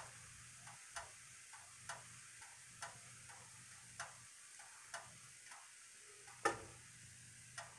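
Faint, even ticking about once a second, like a clock, with softer ticks between the main ones and one louder click about six and a half seconds in.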